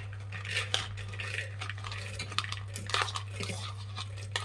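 Fresh field beans spooned from a plastic bowl into an aluminium pressure cooker: the spoon scrapes the bowl and the beans land on the pot in irregular clicks and clatters, with one sharp clink near the end. A steady low hum sits underneath.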